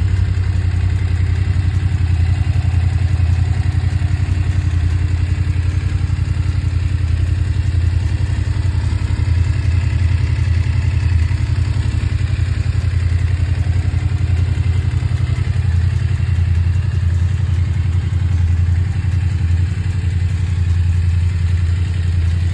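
BMW F 850 GS parallel-twin engine idling steadily.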